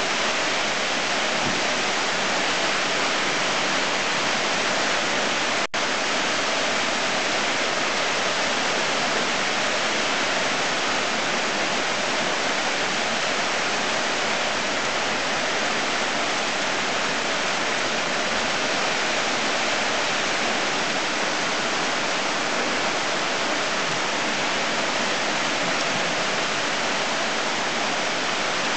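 Heavy rain pouring down in a steady, dense hiss, with a momentary dropout about six seconds in.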